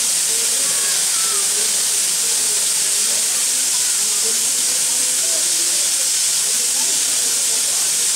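Steady hiss of steam escaping from the L-4600 steam locomotive, unbroken and even in level, with faint voices underneath.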